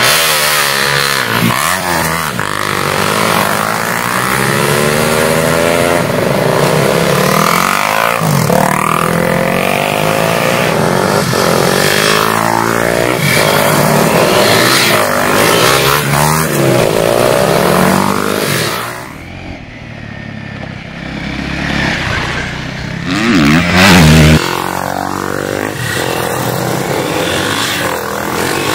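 Motorcycle engines revving hard, their pitch climbing and dropping again and again as the bikes accelerate, shift and pass. The sound eases off about two-thirds of the way through, then comes back loud with a burst of revving.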